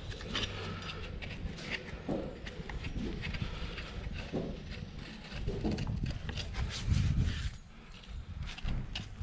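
Horse's hooves shifting and knocking on a hard floor, with a louder low thump about seven seconds in.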